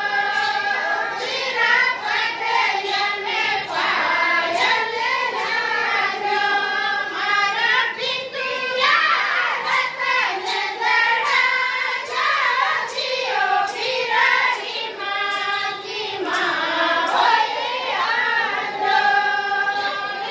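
A group of Rajasthani women singing a mayra folk song together, the traditional wedding song for the maternal family's gifts, in high voices, continuously.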